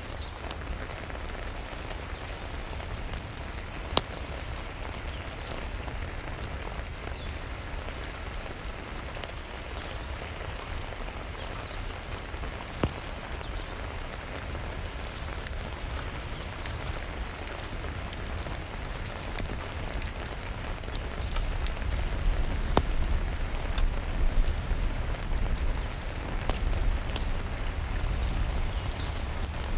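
Steady rain pattering, with a few sharp pops from a crackling wood fire in a fireplace. A low rumble grows louder in the last third.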